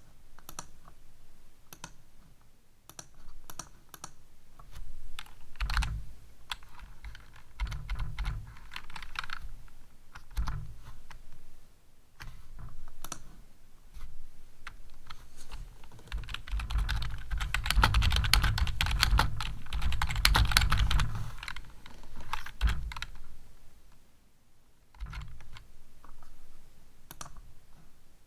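Computer keyboard typing in irregular bursts of keystrokes, with a long fast run in the middle that is the loudest stretch, then a few scattered key taps.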